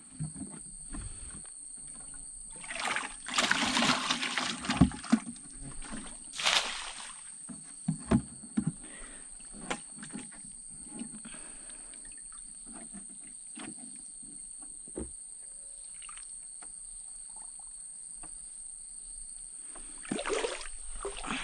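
Stream water splashing and sloshing as a plastic container is dipped and pushed through it, with a cluster of splashes a few seconds in, another about six seconds in, and more near the end. A steady high insect drone runs underneath.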